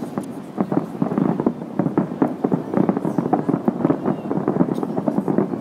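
Aerial fireworks bursting in a rapid, irregular barrage of many overlapping bangs and crackles.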